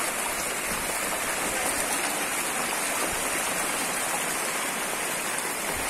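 Fast, turbulent floodwater flowing through a flooded lane: a steady rush of water.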